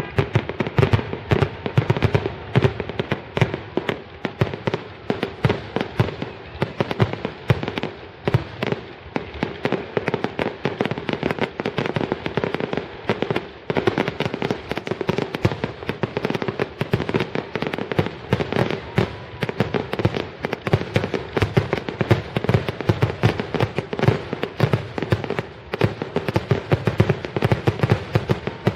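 Fireworks grand finale: a rapid, continuous barrage of shell bursts and crackling reports, many bangs a second with no let-up.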